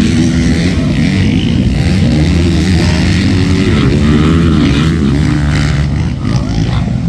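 Motocross dirt bike engines racing around a track, their pitch rising and falling as the riders work the throttle through the turns.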